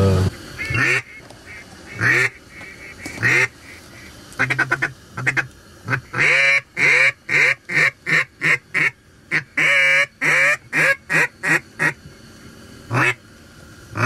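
Duck call blown in a series of loud quacks: a few single quacks about a second apart, a quick string of short notes, then a long run of drawn-out quacks that shorten and space out, and two last single quacks near the end.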